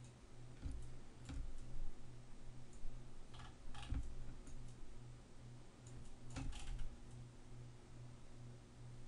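Faint, scattered clicks of a computer mouse and keyboard in small clusters during 3D modelling work, over a low hum that pulses steadily.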